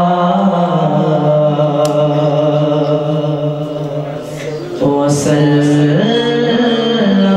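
A man singing an Islamic devotional hymn (hamd/naat recitation) solo into a microphone, in long, slowly bending held notes, with a short breath break a little after halfway before a higher phrase begins.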